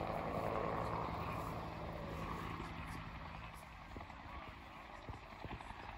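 A vehicle engine running with a steady hum, fading away about two and a half seconds in; a few faint clicks follow.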